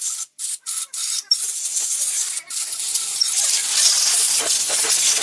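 Abrasive rubbing on a part: a few short scrubbing strokes with gaps, then a steady high rasping hiss.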